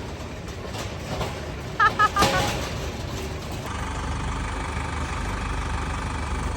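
A few short, loud high chirps about two seconds in, then a steady engine running at idle that sets in near the middle and carries on.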